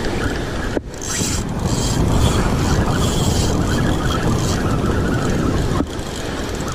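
Wind rumbling on the microphone over the wash of beach surf, as a steady noise that breaks off briefly about a second in and again near the end.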